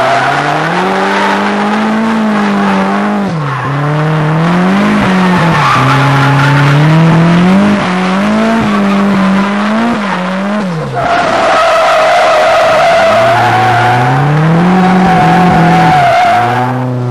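Drift car, heard from inside, with the engine revving up and down over and over as the rear tyres squeal through long slides. A high, steady tyre squeal stands out at the start and again over the last six seconds.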